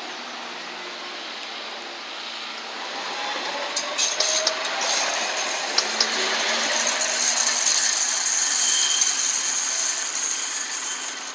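Tram pulling away and passing: its motor whine rises in pitch, the wheels click sharply over rail joints and points, then a loud hiss of wheels on rail builds as it runs through the curve, easing off near the end.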